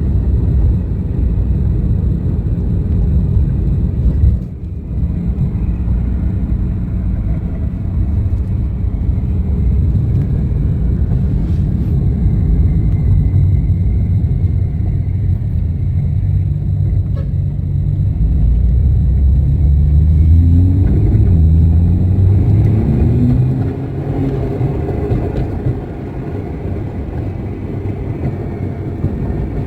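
Porsche 911 Turbo's turbocharged flat-six running with a loud, deep rumble, the revs climbing a few times about two-thirds of the way through. The noise includes a rattle from the rear of the car.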